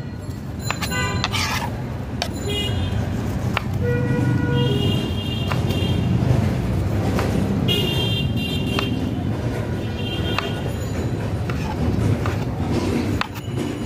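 Street traffic: a steady rumble of passing engines with several short vehicle horn toots. Now and then a knife clicks against a wooden cutting board as pineapple peel is sliced off.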